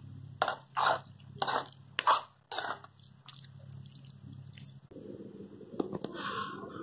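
Metal spoon scraping and stirring a thick, dry-cooked colocasia leaf and peanut mixture in a black kadhai: five quick wet scrapes in the first three seconds, over a faint steady low hum. Near the end, softer rustling and a click.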